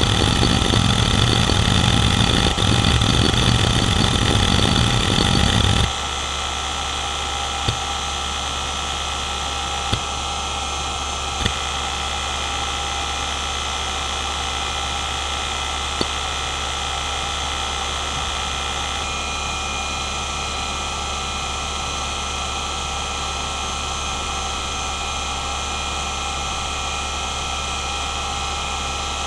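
Hitachi DK228A-65, a three-platter 4200 rpm 2.5-inch laptop hard drive, under a seek benchmark: a dense, loud chatter of rapid head seeks for about six seconds. Then the seeking stops suddenly and only the steady spindle whine and hum remain, with a few single head clicks.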